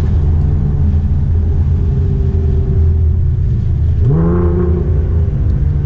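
Steady low engine and road drone heard inside the cabin of a cruising Nissan GT-R R35, whose engine is a twin-turbo V6. About four seconds in, a brief pitched tone rises and then levels off.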